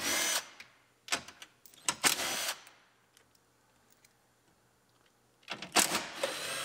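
Red cordless driver with a socket extension running in short bursts to back out the side-mirror mounting bolts on a truck door: three brief runs in the first two and a half seconds, then a longer run of about a second and a half near the end.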